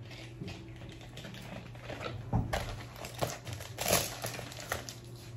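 Silver metallic bubble mailer crinkling and rustling as it is handled and opened, with scattered small taps and clicks; the loudest crackles come about two and a half and four seconds in.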